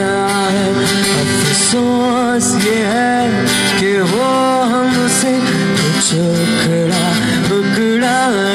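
Live acoustic guitar accompanying a man singing long, gliding held notes into a microphone.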